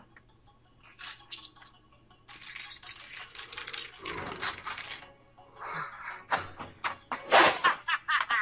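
Anime fight-scene soundtrack: background music with scattered metallic clinks of swords, and a loud sudden hit a little after seven seconds.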